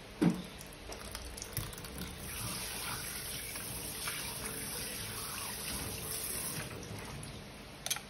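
Water running from a kitchen tap into a stainless steel sink as a steady hiss for about five seconds, starting about two seconds in. A sharp thump just after the start is the loudest sound, and there is a short click near the end.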